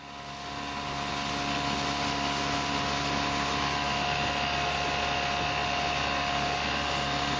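Small outboard motor on an inflatable dinghy running steadily at speed, a constant drone with a steady whine over the rush of water; it fades in over about the first second.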